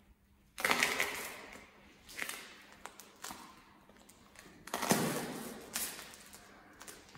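Hard-soled shoes taking slow steps across a concrete floor, each step crunching small white cubes underfoot, about five steps in all.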